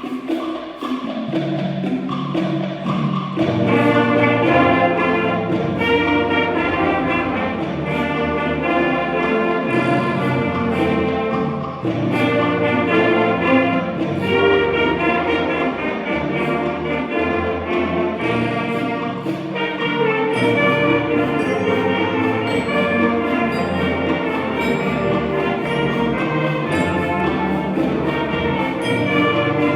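Concert band playing, brass prominent, the fuller ensemble coming in a few seconds in.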